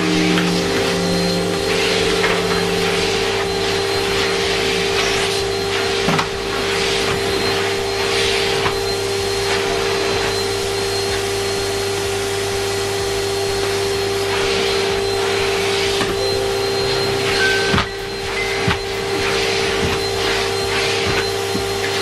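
Numatic Henry cylinder vacuum running with a steady motor hum. The rush of air through the floor tool swells and fades every second or two as it is worked back and forth over carpet.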